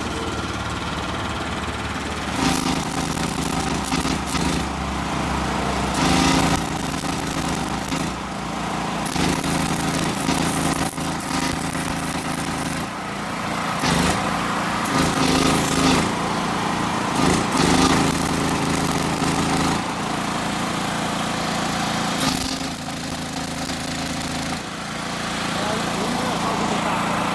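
A 清水牌 SHW228 gasoline welder-generator's engine running under load while a 6.4 mm stick-welding electrode burns in a crackling arc. The arc comes and goes in runs from about two seconds in until about twenty-two seconds in; after that only the engine hum is left.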